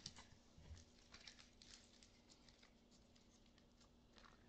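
Near silence with faint scattered ticks and light rustles, typical of trading cards being handled and shuffled, over a faint steady hum.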